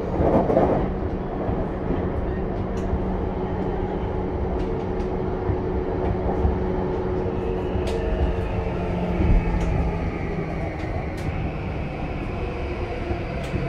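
Running sound of a JR East E235 series 0 motor car heard inside the cabin: a steady hum from the traction motors and the Mitsubishi full-SiC VVVF inverter over the rumble of the wheels, with sharp clicks here and there. A louder rumble comes in the first second, and a faint whine rises in pitch in the second half.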